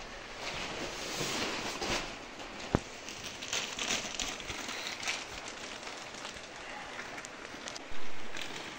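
Plastic sacks rustling and crinkling as they are pulled and handled, with a sharp click about three seconds in and a sudden loud rustle near the end.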